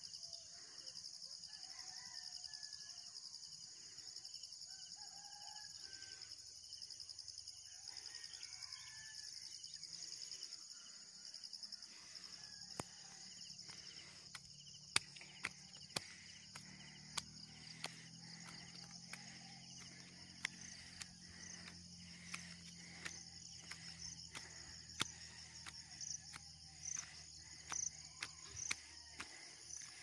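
Faint, steady, high-pitched chorus of insects in the morning countryside, with distant rooster crowing in the first third. From about halfway, sharp clicks and knocks come and go over it.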